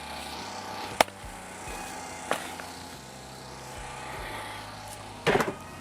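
Axe striking split firewood: one sharp crack about a second in, a fainter knock a little over a second later, and a short louder knock near the end.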